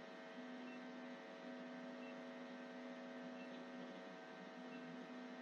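Faint steady electrical hum with a low hiss: the recording's background noise, with tiny faint high blips about every second and a half.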